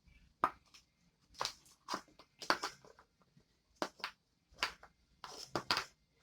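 Slime being squeezed and stretched by hand, giving a dozen or so irregular, short, sharp wet pops and clicks.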